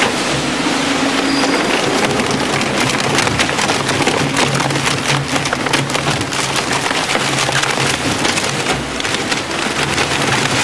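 Grupo SPR RS 85 twin-shaft shear shredder tearing printed cardboard sheets between its toothed cutter discs: a dense, steady crackle of ripping board over the low hum of the machine.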